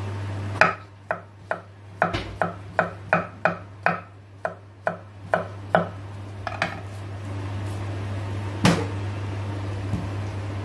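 Knife chopping on a cutting board: a run of about fourteen sharp knocks over five seconds, then a pause and one louder knock, over a steady low hum.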